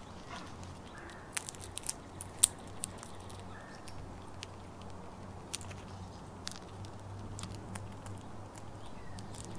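Eastern gray squirrel cracking and chewing seeds and nuts: sharp crunchy clicks, a quick run of them in the first few seconds, then scattered ones.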